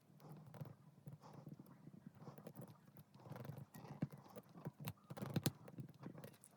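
Irregular hollow clicks and taps of plastic keycaps being handled on a desk while lead tape is pressed into them, busiest and loudest in the second half.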